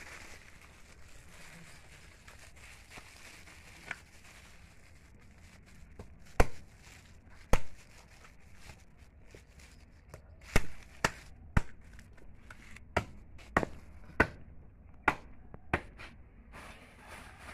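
Heavy chopping knife striking a skinned goat head on a wooden chopping block: about a dozen sharp chops, a few spaced out at first, then quicker in the second half.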